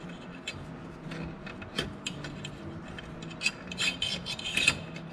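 Stamped-metal cover being worked loose and lifted off a small snowmobile carburetor by hand: scattered clicks, scrapes and rubbing of metal on metal.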